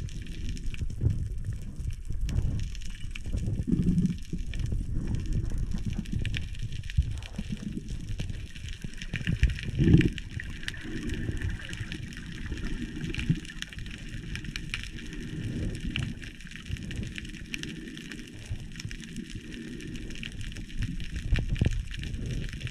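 Underwater sound through a camera's waterproof housing: a muffled, uneven low rumble and sloshing of water moving past it, with scattered faint crackling. A louder thump comes about ten seconds in.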